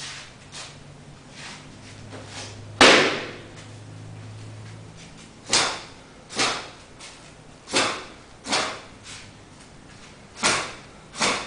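Hard open-hand slaps and blows landing on a karateka's bare, tensed arms and torso during Sanchin kitae body conditioning. A single loud slap comes about three seconds in, then three pairs of strikes, each pair under a second apart, as if one to each side, with a short ring of the room after each.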